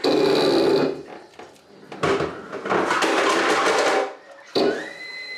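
Water supply line to a toilet bidet seat hammering and buzzing in loud bursts of one to two seconds as the shut-off valve is opened, with a whistle rising in pitch near the end. The owner puts this water-hammer noise down to the shut-off valve not being opened all the way.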